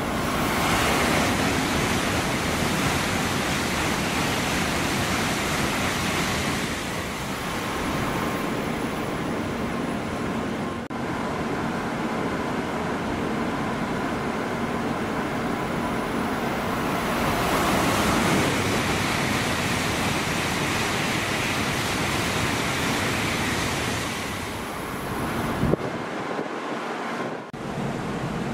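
Tokaido Shinkansen N700-series trains passing at high speed: a steady, loud rushing noise that swells twice as a train goes by, broken by abrupt cuts between passes.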